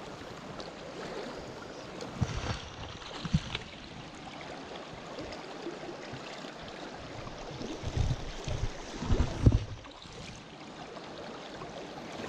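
Shallow stream running steadily over its rocky bed, with a few thumps and splashes as a small brown trout is handled in a landing net, loudest about two to three seconds in and again around eight to nine and a half seconds.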